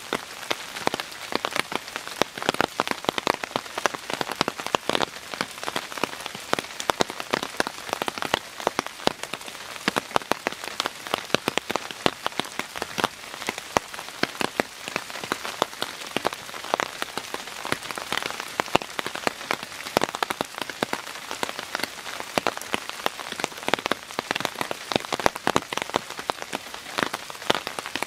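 Steady rain falling, a dense, even patter of individual drops.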